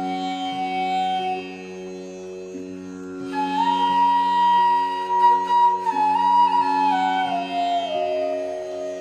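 Indian classical-style instrumental background music: a flute-like melody over a steady drone. A held note fades out early, and after a short gap a new phrase enters about three seconds in and steps downward with sliding notes.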